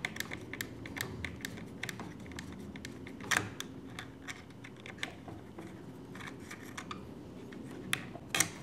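Light, irregular metallic clicks and ticks of a 2.5 mm Allen wrench turning and re-seating in a small screw on a 3D printer's LCD unit mount, with one louder click about three seconds in and a few more near the end.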